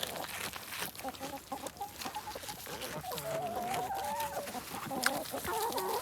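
Chickens clucking, with a run of wavering, drawn-out calls in the second half over scattered small clicks.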